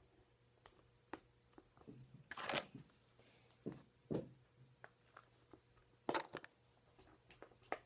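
Spoon stirring and scraping slime in a bowl: scattered faint clicks and short scrapes, with a few louder scrapes about two and a half, four and six seconds in.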